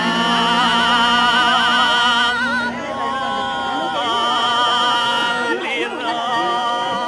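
Singing on long held notes with a wavering vibrato, changing note a few seconds in, over a music backing.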